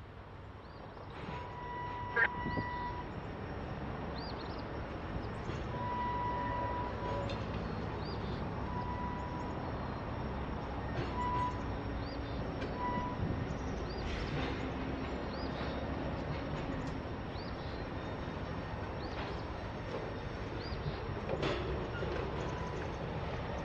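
Freight cars rolling slowly along the rails as a train is shoved back: a low, steady rumble with scattered sharp clicks, and short high whines every few seconds.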